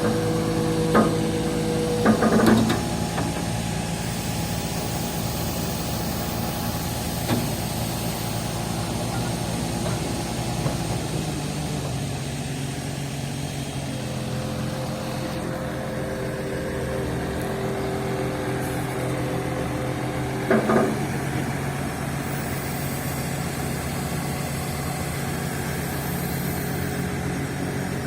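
Komatsu PC200-6 excavator's turbocharged S6D105 six-cylinder diesel engine running steadily after an overhaul, its tone shifting a few times, with a few short knocks.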